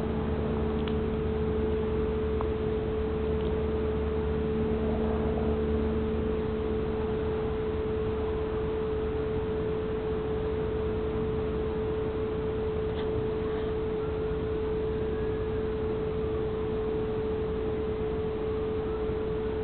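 A steady hum holding one pitch, over a constant background hiss, with a few faint short whistles in the second half.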